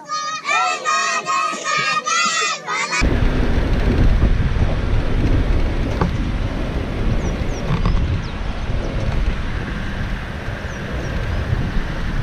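A roomful of children singing together for about three seconds, then cut off abruptly by loud wind buffeting the microphone, a dense low rumble.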